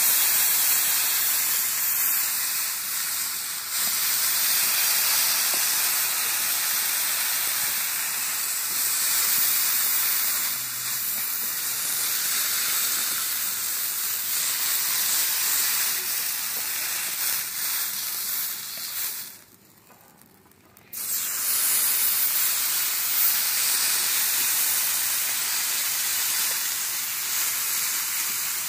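New York strip steak sizzling on a hot flat-top griddle, held on its edge with tongs to sear it: a steady hiss that drops out for about a second and a half about two-thirds of the way through.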